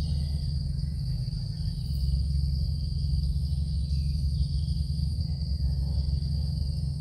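Steady, high-pitched chorus of insects in the forest at dusk, over a constant low rumble.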